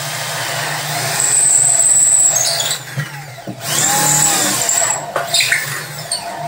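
Small handheld electric drill running while it cuts into the wooden body of an electric arpeggione. The motor runs steadily, with a high whine for a second or so near the start and a couple of brief dips in level as the bit bites and eases.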